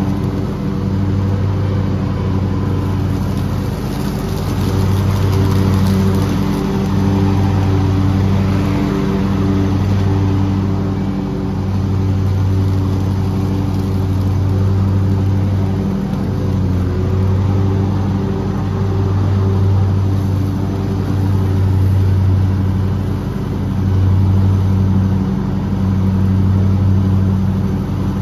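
Lawn mower engine running steadily while cutting grass, its low hum wavering every second or two.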